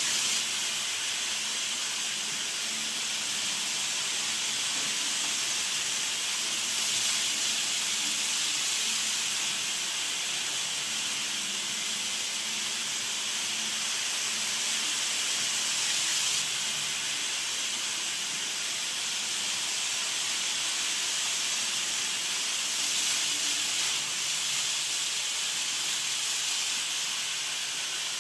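KATO model trains running on Unitrack: a steady high hiss of wheels and small motors with a faint low hum, swelling slightly a few times.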